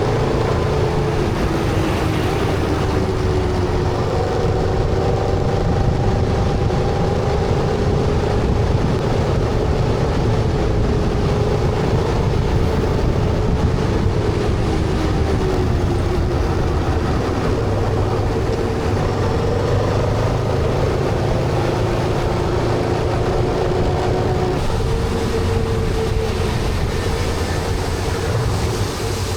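Honda Transalp motorcycle running at road speed, its engine note drifting slowly up and down over a steady rush of wind and road noise.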